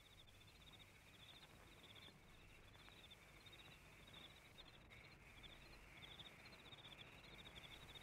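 Faint insects chirping: short, high-pitched pulsed trills repeating steadily, over the low hiss and hum of an old film soundtrack.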